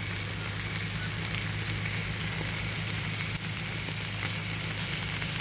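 Steaks sizzling steadily on a hot grill, with a steady low hum underneath.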